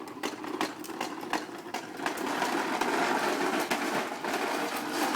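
Toy push lawn mower rattling and clicking as it is rolled over concrete, with a steady whir that grows louder about two seconds in.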